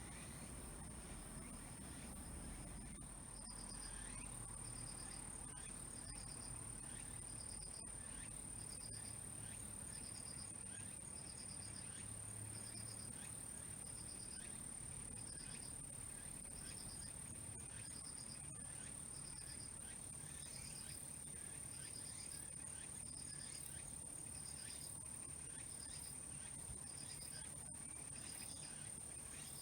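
Insects chirping: a steady high trill, joined a few seconds in by a short chirp repeating about once a second, likely a cricket. Faint scattered ticks, likely from the small wood fire, sit underneath.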